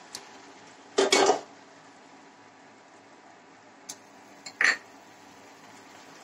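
A cooking utensil knocking and scraping against a frying pan of fish in gravy: two short clatters, about a second in and again about four and a half seconds in.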